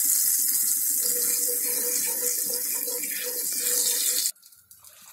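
Panch phoron, whole five-spice seeds, sizzling in hot mustard oil in a frying pan as a steady high hiss, stirred with a wooden spatula. The hiss cuts off suddenly about four seconds in.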